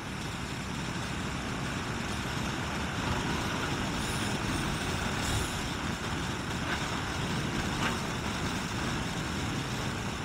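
Motorcycle on the move at road speed, heard from a helmet-mounted camera: steady wind and road rush with the engine running underneath.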